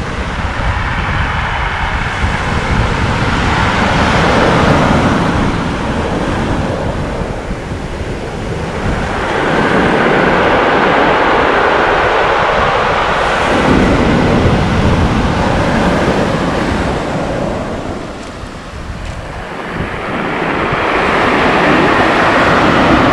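Surf washing over a stone beach, the rush of water mixed with the rattle of stones rolled by the waves. It swells and ebbs in three surges, with wind buffeting the microphone.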